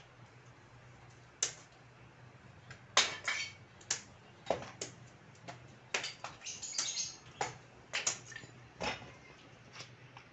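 Irregular sharp clicks, taps and clinks, several in quick clusters, from someone at work with hard objects, over a faint steady low hum.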